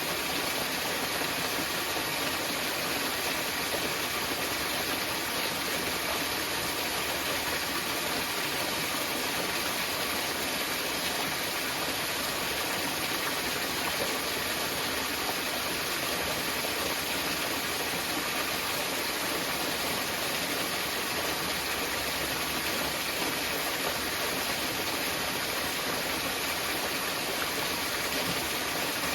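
Small mountain waterfall: water falling and splashing steadily as an even hiss with no breaks.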